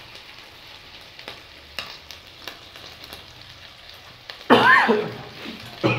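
Beef and a tomato-onion-chile salsa sizzling steadily in pans on a stove, with a few light clicks. About four and a half seconds in, a brief loud squeal rises and falls in pitch.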